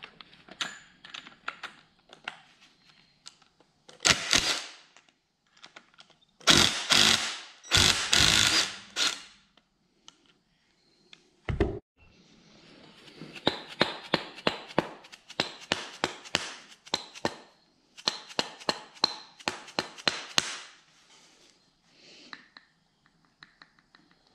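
Cordless impact wrench hammering in short bursts, loosening the tight 12-point cap bolts of a connecting rod. Then a single low thump, and a long run of quick, evenly spaced taps from a dead blow hammer knocking the rod cap loose.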